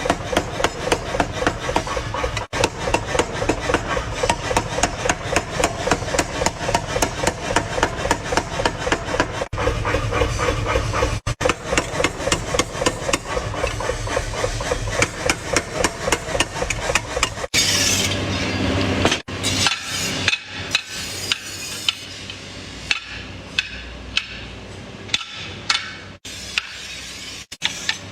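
Hammer blows on the steel of a garden hoe being forged, a steady rhythm of about three strikes a second. A little past halfway there is a brief rushing noise, then the strikes become sparser and lighter.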